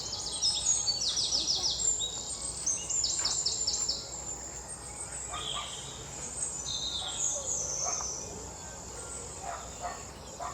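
Rural outdoor ambience: a steady high-pitched insect buzz, with quick runs of high chirps in the first four seconds and a few scattered chirps after.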